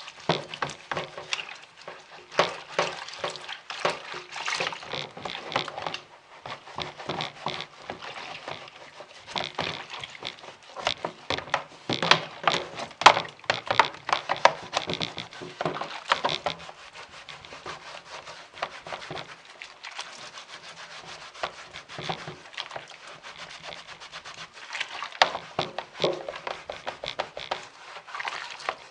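Rapid scrubbing and scraping strokes against the blades and frame of an exhaust fan being cleaned, in dense bursts with a quieter stretch past the middle.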